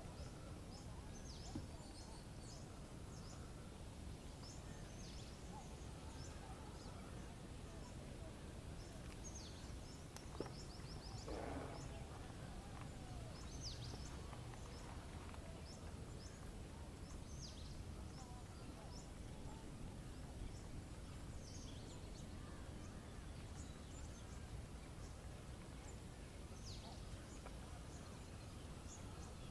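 Outdoor nature ambience: many small birds chirping in short high notes over a steady low background rumble, with one lower, longer wavering call a little before halfway.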